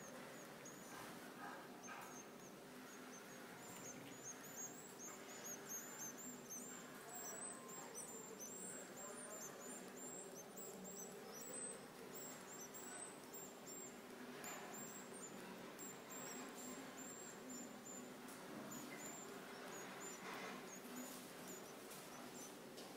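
Goldfinch nestlings (Iberian parva race) begging as the parent feeds them: a rapid, faint stream of very high, thin cheeps. The cheeping is densest from a few seconds in to about halfway, thins out, then picks up again near the end.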